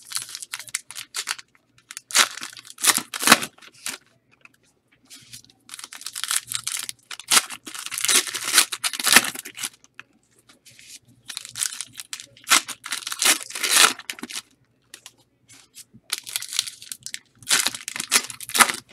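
Classics football card packs being torn open one after another: crinkly ripping of the pack wrappers in bursts of one to a few seconds, with short pauses between.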